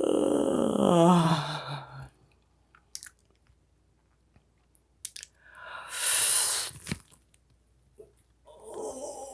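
A person yawning. The loud voiced yawn falls in pitch over about two seconds, then come a few small mouth clicks and a long breathy sigh, and another voiced yawn starts near the end.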